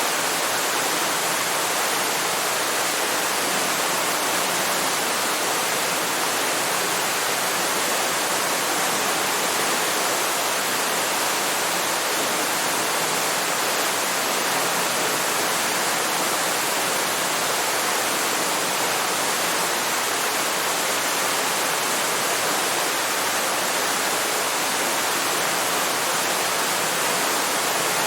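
Waterfall: water falling and splashing in a steady, even rush with no breaks, mostly hiss and little deep rumble.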